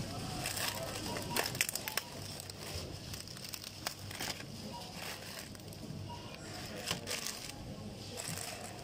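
Groceries being unloaded from a plastic shopping basket onto a checkout counter: plastic snack bags and packaging crinkling, with scattered light knocks as items are set down. Voices sound in the background.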